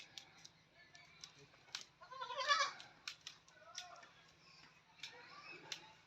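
Goats bleating: one loud, wavering bleat about two seconds in, with a few fainter calls after it and scattered sharp clicks.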